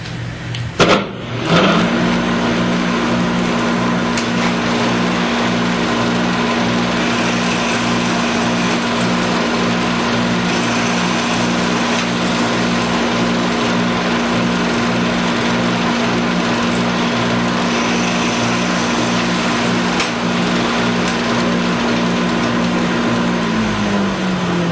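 Shopsmith drill press and its dust-collection vacuum switched on with a click, running steadily as holes are drilled, then winding down, falling in pitch, just before the end.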